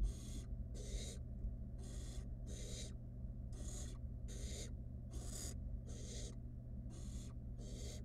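Barn owl nestlings giving their harsh, breathy hissing 'snore' calls, the begging call of barn owl chicks, repeated a little more than once a second over a steady low hum.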